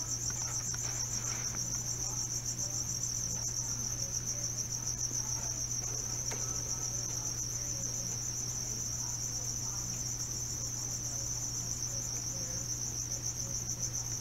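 A high, unbroken insect trill, finely pulsing and even in level throughout, over a low steady hum.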